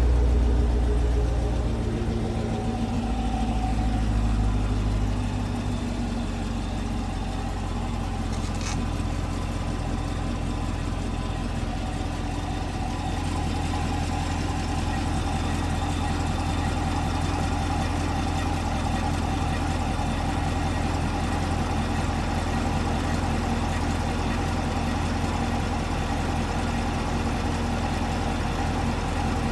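2018 Chevrolet Camaro SS 6.2-litre V8 idling through its dual-mode NPP exhaust after a cold start. The idle steps down twice in the first few seconds and then holds steady. There is a single sharp click about nine seconds in.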